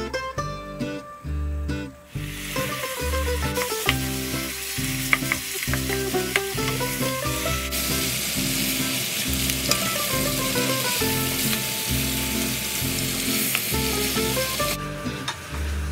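Pork cubes sizzling as they fry in a pot and are stirred with a wooden spatula, with scattered sharp pops and clicks. The sizzle starts about two and a half seconds in and cuts off shortly before the end. Background music plays under it throughout.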